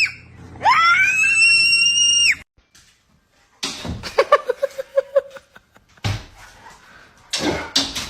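A long, high-pitched scream that rises and then holds for about two seconds. After a second of quiet, a quieter run of short, rapid pulsed cries follows.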